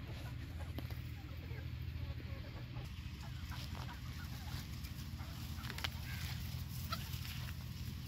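A flock of chickens clucking, with scattered short calls, over a steady low hum.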